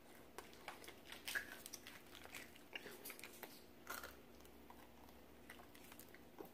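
Faint crunching and chewing on crispy fried chicken, with scattered short crisp clicks of biting.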